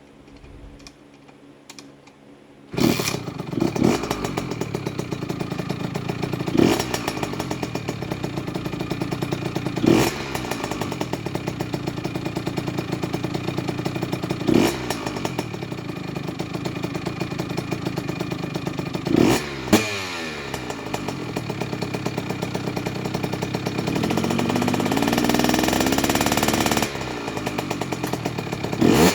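Kawasaki KX65's 65cc two-stroke single-cylinder engine starting suddenly about three seconds in, then idling with short throttle blips every few seconds and a longer rev up and back down near the end. It is running a break-in heat cycle on a fresh motor.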